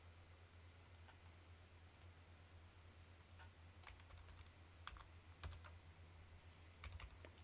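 Faint computer keyboard key presses, scattered single clicks and small clusters of taps, over a steady low hum.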